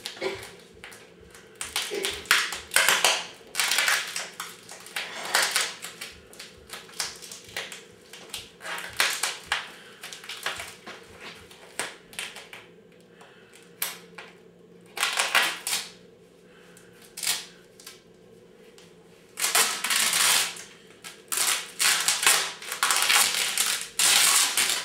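White plastic wrapping crinkling and tearing as it is pulled and ripped off in strips, in irregular crackling bursts with a longer continuous stretch of ripping near the end.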